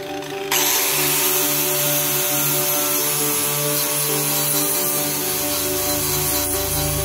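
Handheld angle grinder switched on about half a second in and grinding a steel horseshoe, a steady high hiss of the wheel on metal over the motor's whine.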